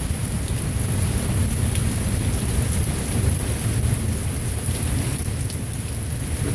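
Heavy rain falling steadily, with continuous rolling thunder rumbling low underneath without a break.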